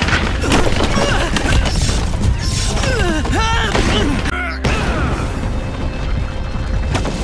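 Cartoon sound effects of rocks crashing and tumbling over a deep rumble, with background music, and a break partway through where the scene changes.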